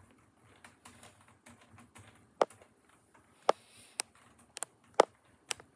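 Several sharp plastic clicks, irregularly spaced about half a second to a second apart, as the moving parts of a Lego Concorde model, such as its landing gear, are worked by hand.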